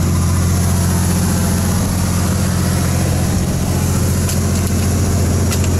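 A fishing boat's onboard engine running steadily with a constant low hum, with a couple of faint clicks near the end.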